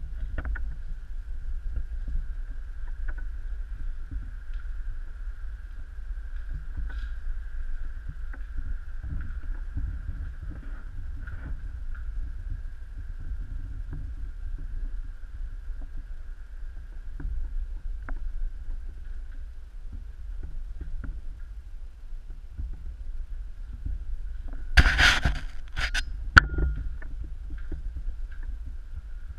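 Footsteps and camera handling noise while walking through fire-gutted rooms: a low rumble with scattered small crunches and knocks of debris underfoot, over a faint steady high whine. About 25 seconds in comes a loud crunching scrape, then a sharp knock.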